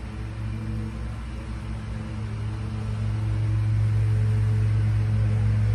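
A machine's steady low mechanical hum, growing louder about halfway through.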